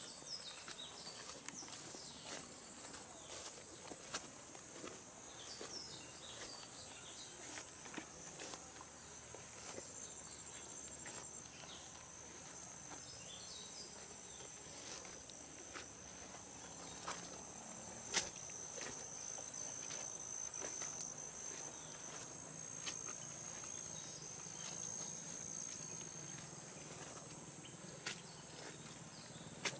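Steady, high-pitched chorus of insects chirring, with irregular footsteps squelching and clicking in wet mud; the sharpest click comes about 18 seconds in.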